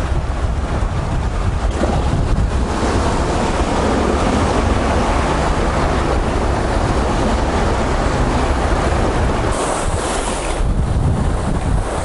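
Wind buffeting the microphone over the wash of sea waves breaking on a rocky shore, a steady noise that grows fuller about three seconds in.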